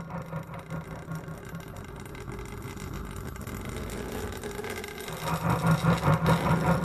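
A low, steady rumble with a pulsing hum underneath, growing louder about five seconds in.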